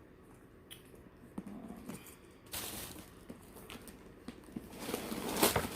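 Tissue paper rustling and crinkling as it is pulled out of a new handbag. It starts a couple of seconds in after a few light taps and gets louder near the end.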